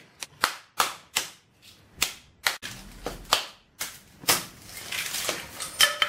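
Hammer blows on a microwave oven transformer, about a dozen sharp metallic strikes at an irregular pace with some rattling between them, driving the winding out of the steel core.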